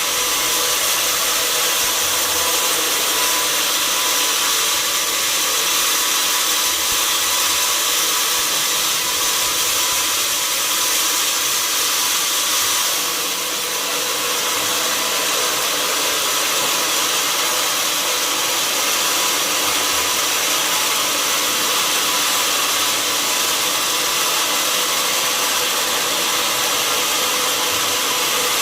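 Sawmill saw cutting through an oak log: a steady, high-pitched whine over rasping noise, dipping briefly about halfway through.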